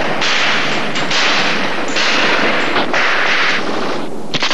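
Gunfire in harsh, noisy bursts, four of them each under a second long with short breaks between.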